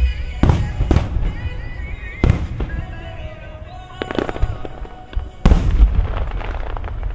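Aerial firework shells bursting: a string of sharp booms about half a second, one second, two and a quarter seconds and four seconds in, and the loudest burst about five and a half seconds in, which crackles on for about a second. Show music plays underneath.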